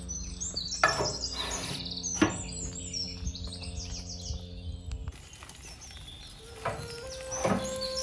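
Small birds chirping in quick high bursts over quiet background music, with two sharp knocks in the first half. The sound changes abruptly about five seconds in, and a steady held tone comes in near the end.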